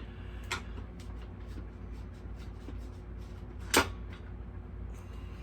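Two clicks of tools and parts being handled during a mini bike engine teardown: a light one about half a second in and a sharp, louder one near four seconds, over a steady low hum.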